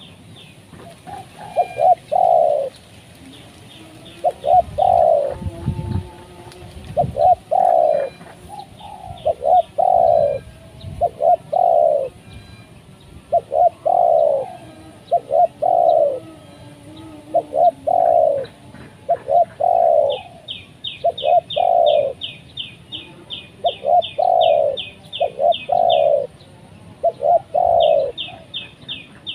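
Spotted dove cooing over and over, a phrase of two or three soft notes about every two seconds. A rapid series of high chirps comes and goes over it, with a long run about two-thirds of the way in and again near the end.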